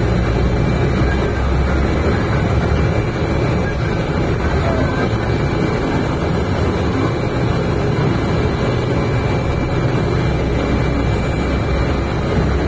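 Cabin noise of a Mercedes-Benz O405 city bus on the move: a steady diesel engine drone with road and body noise, and a faint steady high tone above it.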